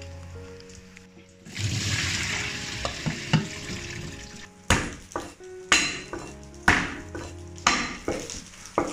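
Soft background music. Cooked, wet sliced bamboo shoots are tipped from a metal scoop into a wicker basket with a rustling, splashy wash. This is followed by a cleaver chopping garlic on a wooden chopping board, sharp knocks about once a second.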